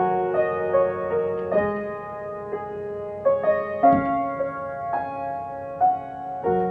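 Yamaha upright piano played slowly: held chords and a simple melody, a new chord struck every half second to a second and left to ring and fade.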